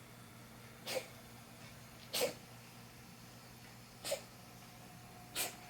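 A cat coughing four times, short sharp coughs spaced a second or two apart. The owner wonders whether the cough is a sign of feline asthma or of a hairball.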